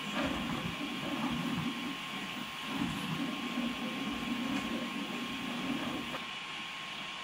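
Two Prusa i3 MK3S-type 3D printers, an original and a Fysetc clone, printing side by side: their stepper motors whir in a warbling pattern that changes pitch with each move, over the steady hiss and thin whine of the cooling fans. The motor whir stops about six seconds in, leaving a quieter fan hiss.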